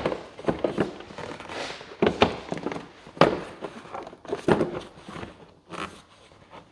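Plastic clicks, knocks and rattles of a car's air filter box being unclipped and worked loose from its intake hose. The sharpest knocks come at the start and about two and three seconds in.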